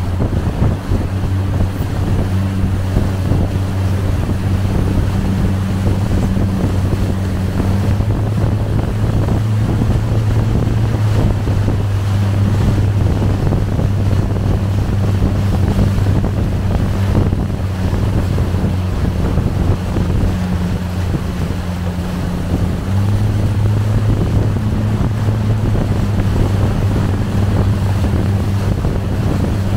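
Motorboat engine running at steady speed, its low hum stepping slightly up and down in pitch a few times, under wind buffeting the microphone and the rush of water.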